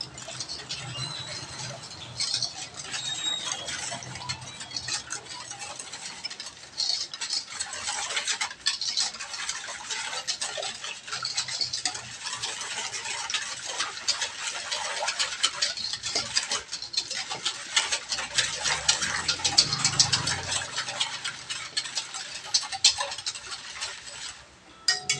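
A hand stirring a liquid mix of brown sugar, water and egg in a stainless steel bowl, fingers swishing through it and scraping and knocking against the steel in quick, irregular clicks. The stirring stops briefly near the end.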